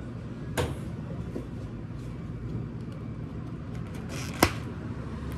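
A clear plastic dome lid is pressed onto a plastic iced-drink cup and snaps on with one sharp click about four seconds in. A softer knock comes about half a second in. A steady low machine hum runs underneath.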